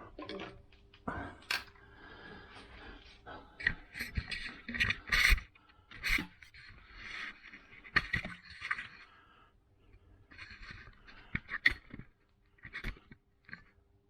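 Tools and objects being moved about and scraped across a workbench: irregular scrapes with sharp knocks and clatter.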